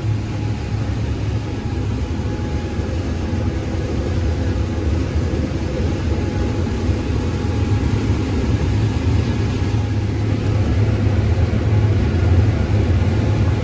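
Combine harvester running steadily while harvesting corn: a continuous low engine and machinery drone that swells slightly near the end.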